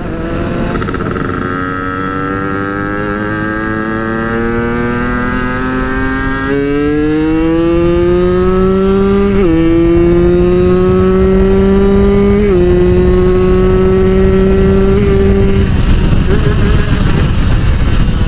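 Yamaha Force 1 two-stroke underbone motorcycle engine accelerating hard through the gears. Its pitch climbs in long rising sweeps and drops suddenly at each upshift, then holds steady before the engine note fades out under rising wind rush on the microphone near the end.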